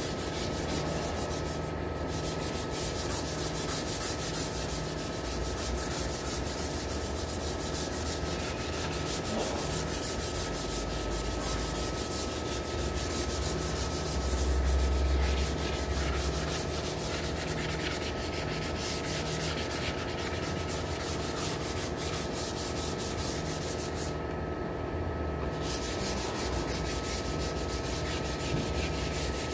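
Hand sanding with 120-grit sandpaper on a pickup tailgate's bare repair patch: a steady scratchy rubbing as the paper is worked back and forth, scuffing the surface so body filler will grip.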